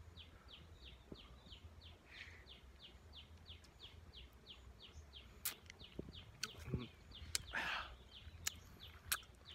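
Faint mouth sounds of honey being sucked and eaten straight from a small wild honeycomb: a few sharp clicks from about halfway and one short slurp near the end. Underneath, a steady high chirping repeats about four times a second.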